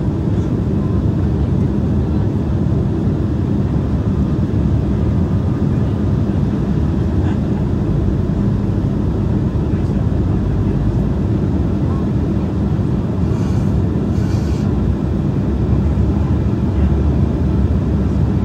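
Steady in-flight cabin noise of an Embraer E175 airliner: a deep drone from its two GE CF34 turbofan engines and the airflow around the fuselage, swelling slightly near the end.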